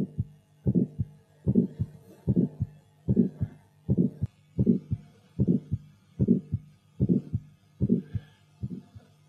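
Heartbeat sound effect: steady lub-dub double thumps, about 75 a minute, growing fainter over the last couple of seconds, over a faint low hum.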